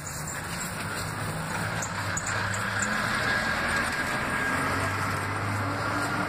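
A motor vehicle's engine running, growing louder over the first two or three seconds and then holding steady, its low pitch shifting and rising slowly near the end.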